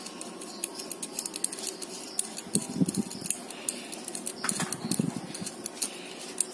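Faint, irregular small clicks and ticks of fingers handling a push-pull switch while a small nut is turned off its threaded brass shaft by hand.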